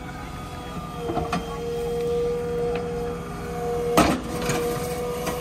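JCB 3DX Plus backhoe loader's diesel engine and hydraulics running under load with a steady whine, working harder from about a second in as the boom lifts a full bucket of dung over a tractor trolley. A single sharp knock about four seconds in.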